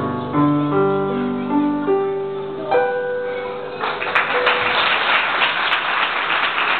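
Electronic keyboard playing the closing notes of a slow piece over sustained chords, ending on a held chord. About four seconds in, the audience breaks into applause.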